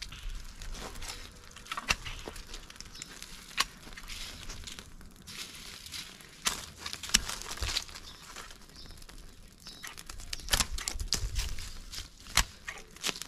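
Dry leaves and twigs crackling and rustling, with irregular sharp snaps scattered throughout and a few louder clusters near the end.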